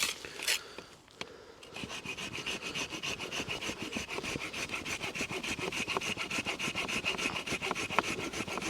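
Hand saw cutting through wood in quick, even strokes, starting about two seconds in after a few knocks.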